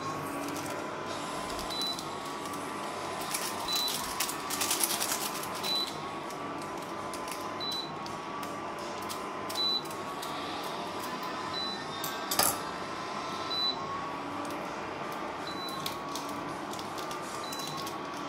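Induction cooktop giving a short high beep about every two seconds over a faint steady whine, the warning it sounds when the pan on it is not induction-compatible. Rustling and a sharp snip come from a sachet being cut open with scissors about 12 seconds in.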